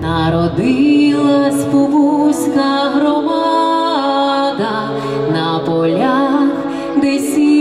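A woman singing a slow melody into a microphone, one voice moving between long held notes with vibrato.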